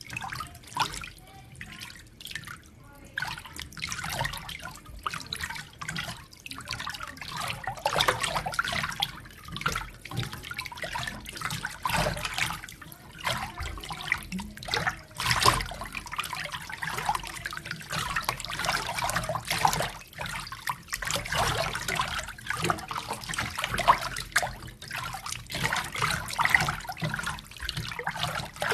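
Water splashing and sloshing in a close, irregular run of small splashes and drips, staged as a foley effect. It is quieter for the first few seconds, then busier and louder.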